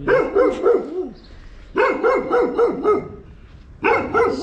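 An agitated dog barking in rapid volleys, three bursts of about five quick barks each with short pauses between.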